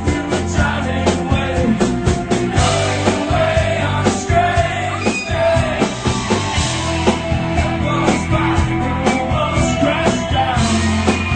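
Rock band playing live: a steady drum beat, bass and guitars, with a sung lead vocal.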